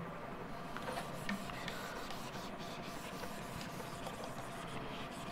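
Faint rubbing of a handheld whiteboard eraser wiping marker writing off a whiteboard.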